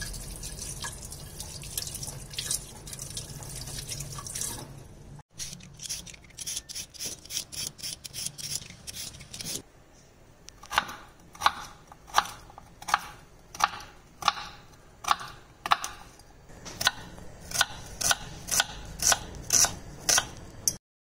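A vegetable peeler scraping along a white radish in quick strokes, then a knife chopping a red onion on a wooden cutting board, about two sharp cuts a second.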